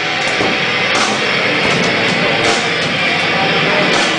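Loud heavy rock music with guitar, playing steadily.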